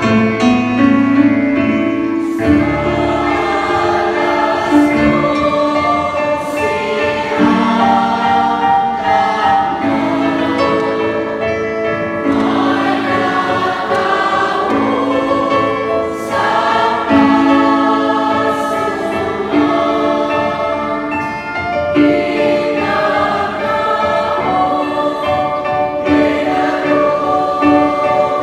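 Parish church choir singing a hymn, many voices together in sustained notes.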